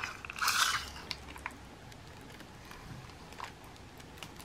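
Clear plastic film over a diamond painting canvas crinkling briefly under a hand about half a second in, followed by a few faint taps and handling noises.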